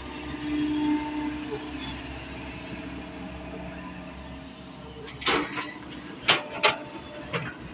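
Kobelco 140 hydraulic excavator running steadily while it digs sand, a continuous low machine hum with a steady tone that stands out for about a second near the start. Four sharp knocks come in the last three seconds.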